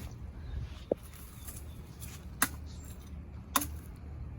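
Chopping blows into the base of a dead papaya tree: three sharp strikes with a lighter knock between them, a second or more apart.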